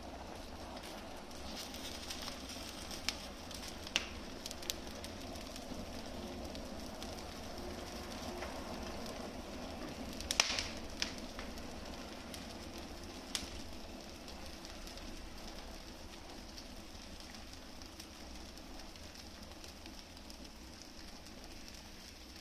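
Wood fire crackling in a fireplace: a steady low hiss with scattered sharp pops, the loudest about ten seconds in.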